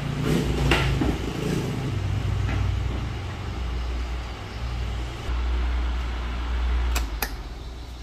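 Miyako wall fan running, with a steady low rumble from its airflow buffeting the microphone. Two sharp clicks come about seven seconds in.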